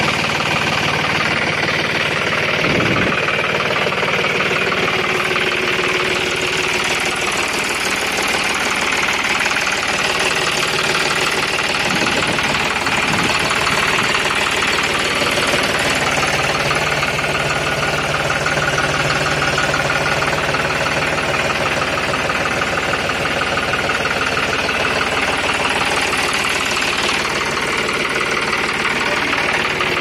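Tractor's diesel engine idling steadily.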